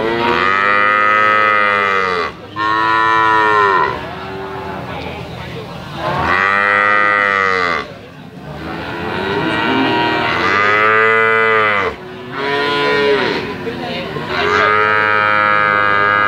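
Calves bawling: a run of about six loud, drawn-out moos, each rising and then falling in pitch, following one another with short breaks.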